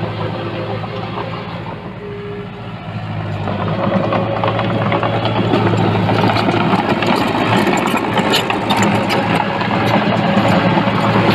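Heavy-equipment diesel engine running steadily, easing off about two seconds in, then working harder and louder from about four seconds in, with light rattling and clanking over it.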